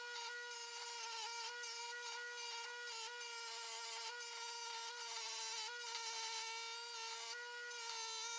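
Electric sanding tool running steadily on a steel sword blade, its motor hum dipping slightly in pitch now and then as it is pressed, over a scratchy sanding noise.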